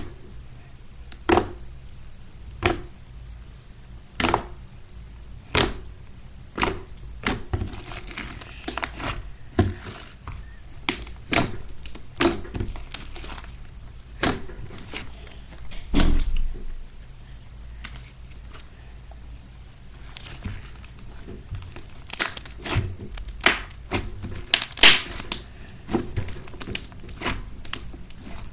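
Slime being pressed, poked and squeezed by hand, giving short sharp crackles and pops about once a second, coming quicker and closer together near the end.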